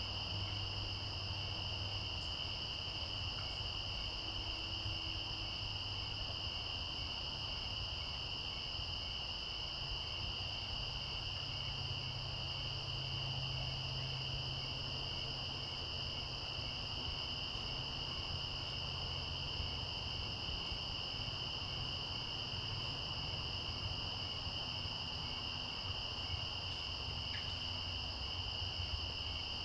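Crickets trilling steadily in a continuous high chorus, with a fainter, evenly pulsing insect call beneath it.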